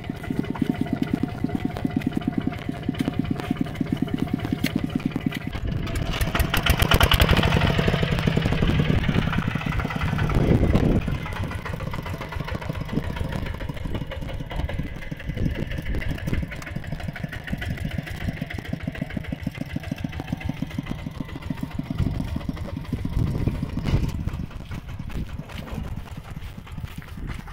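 Two-wheel walking tractor's single-cylinder diesel engine chugging with a fast, even beat. About six seconds in it revs up and gets louder, then eases back to a steady run after about five seconds.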